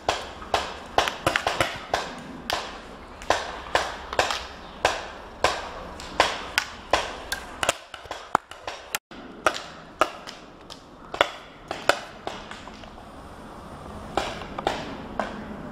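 Paintball markers firing: an irregular string of sharp pops, two or three a second, thinning out near the end.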